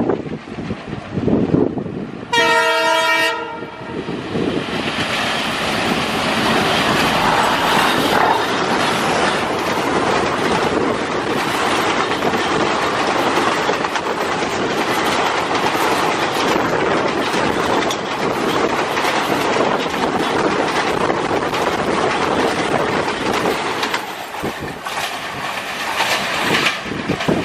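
WDG3A diesel locomotive sounds one horn blast about two seconds in, lasting about a second. Then the express passes at speed over a bridge, with engine noise and wheels clattering over the rail joints, steady until it eases off near the end.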